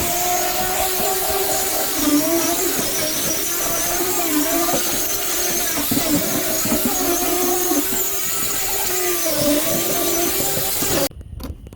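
Electric power tool motor running steadily during wooden pallet repair, its pitch dipping several times before it stops abruptly near the end.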